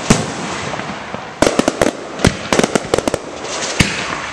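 Aerial fireworks going off: a sharp bang just after the start, then quick runs of cracks and pops between about one and a half and three seconds in, and another bang near the end, with a steady hiss between them.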